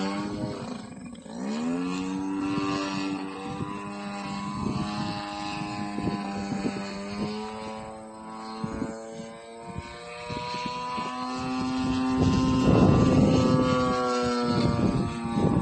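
55cc two-stroke gasoline engine on a large RC aerobatic plane running with its propeller spinning. It revs up about a second in, then holds a steady pitch with small changes in throttle, and grows louder near the end.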